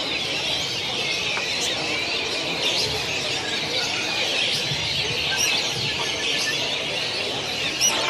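A dense chorus of caged lovebirds chattering and trilling without a break: rapid high chirps and long trilling runs, the 'ngekek' song that lovebirds are judged on.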